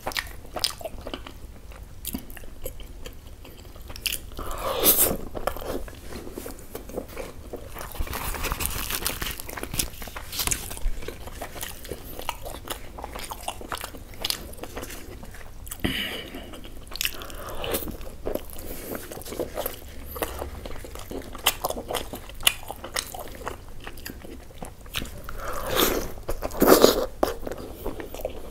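Close-miked chewing of soft puri dipped in spicy chicken curry, a steady run of small clicks and mouth noises, louder about five seconds in and again near the end.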